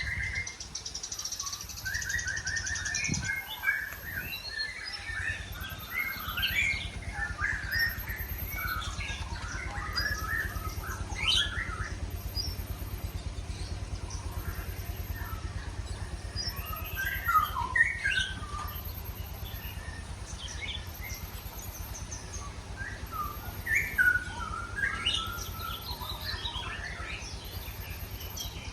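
Several songbirds chirping and whistling in short, varied phrases. A faint, very high-pitched pulsing tone comes and goes about once a second, over a steady low hum.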